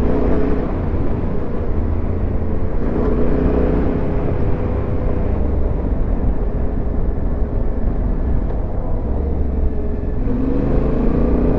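Yamaha Ténéré 700 parallel-twin engine running steadily while riding, heard from the rider's camera, with its pitch rising near the end as it picks up speed.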